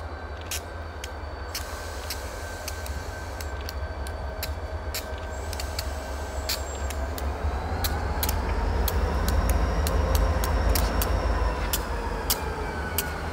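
Diesel locomotives of a freight train approaching at low speed: a deep engine rumble that grows louder as the lead unit draws near, with a faint whine that rises and falls, and many sharp clicks.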